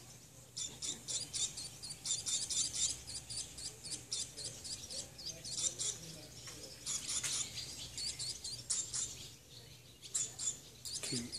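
Nestling birds begging in their mud nest: rapid, high-pitched chirps coming in bursts of a second or two, with short pauses between them.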